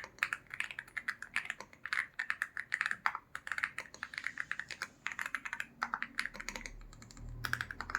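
Rapid typing on an Aula F87 TKL mechanical keyboard with factory-lubed Leobog Greywood V4 linear switches and PBT keycaps: a soft, thocky clatter of keystrokes, easing briefly about six and a half seconds in.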